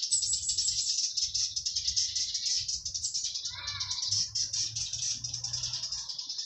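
Cicadas buzzing in a continuous, fast-pulsing high drone, with a few short chirping calls about three and a half seconds in.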